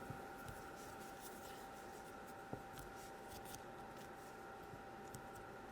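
Faint rustling and light ticks of hands handling modelling clay, with one small click about two and a half seconds in, over a faint steady hum.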